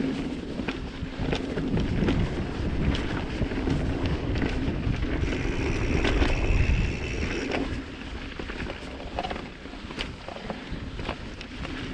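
Wind buffeting a GoPro action camera's microphone as a Giant Trance full-suspension mountain bike descends a dirt trail, with tyres rolling and the bike clattering over bumps in frequent short knocks. A high steady squeal sounds for about two seconds in the middle.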